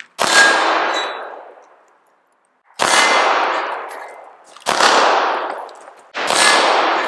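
Four 9mm pistol shots at uneven intervals. Each sharp crack is followed by a long ringing decay.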